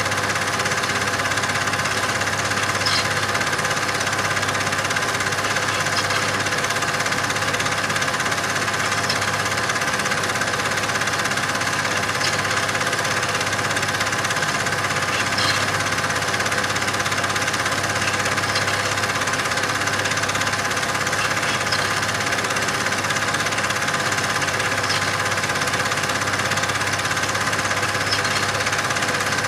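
A steady mechanical running noise with a fast, even clatter and a low hum, unchanging in level or pitch throughout, with faint ticks about every three seconds.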